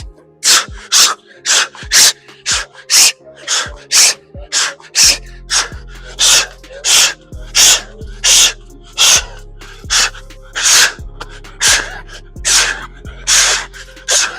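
A man's sharp, forceful exhales through hard plyometric bodyweight exercise, an even train of nearly two a second. Background music with a steady bass comes in about five seconds in.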